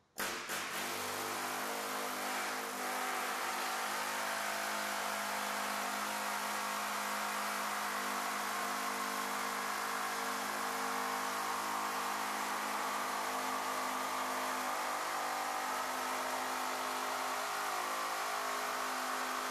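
Pneumatic air hammer fitted with a Skin Zipper forming head, hemming the flange of a car door skin. It cuts in suddenly and then runs with a steady, even drone.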